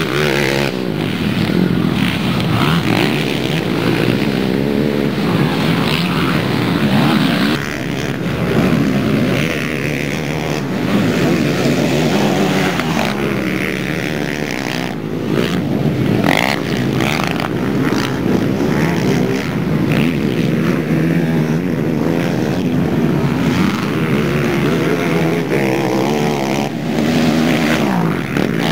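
Racing quad bike engines revving hard, their pitch rising and falling over and over as the quads accelerate and back off around a dirt track, several engines overlapping.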